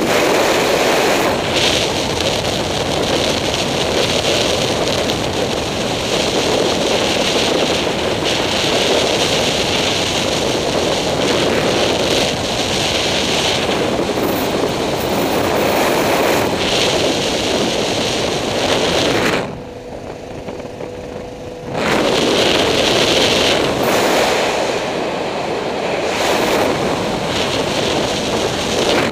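Wind rushing and buffeting on the microphone of a camera mounted on a moving vehicle, over the vehicle's running noise. The wind noise drops out for about two seconds past the middle, leaving a faint steady hum, then returns.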